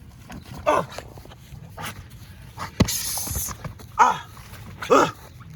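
A dog barks three times, short barks that drop in pitch, with a sharp thud and a brief hiss between the second and third.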